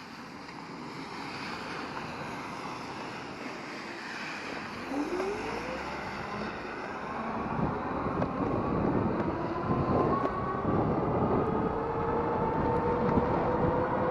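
Rize Blade 2 electric bike being ridden: wind and riding noise, with the electric motor's whine coming in about halfway and slowly rising in pitch as the bike gains speed, over a dense rattling of bumps.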